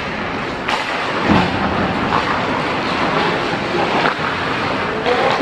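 On-ice hockey play heard through a goalie's helmet-mounted camera mic: a steady rushing noise of skates on ice and rink noise, broken by a few sharp clacks about a second in, near four seconds and near five seconds.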